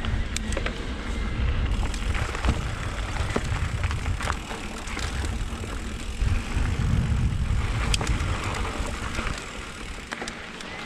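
Mountain bike ridden over a dirt trail, recorded on a bike-mounted or body-worn action camera: wind rumbling on the microphone, tyres crunching on dirt and gravel, and frequent sharp rattles and knocks from the bike over bumps. The rumble eases off near the end.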